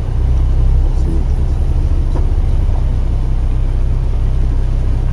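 Steady low rumble of a car driving, as picked up by an in-car dashcam.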